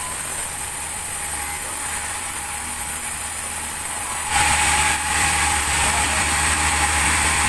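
Sawmill machinery running steadily with a low hum; about four seconds in it turns suddenly louder, with a steady whine and more hiss.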